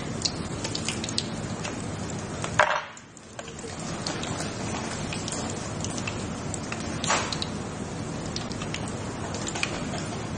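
Oil sizzling and crackling steadily around breadcrumb-coated shrimp toast rolls deep-frying in a pan, with many small pops. The sound drops away briefly about three seconds in.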